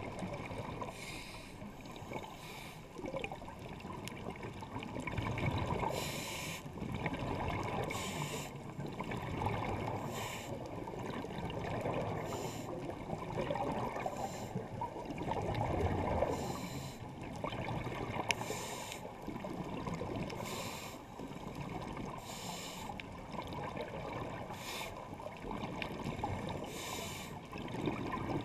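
A scuba diver breathing through a regulator underwater, heard through a GoPro's waterproof housing. A short high hiss comes roughly every two seconds, between longer low rushes of bubbling.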